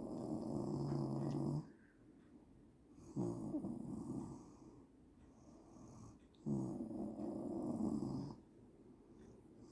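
A sleeping woman snoring in a steady rhythm: loud, rasping snores of under two seconds each, about every three seconds, with quiet breathing between them. A fourth snore begins just at the end.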